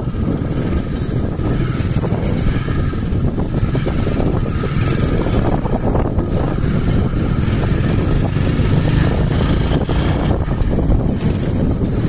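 Motorcycle running along at a steady speed, its engine mixed with wind noise on the microphone.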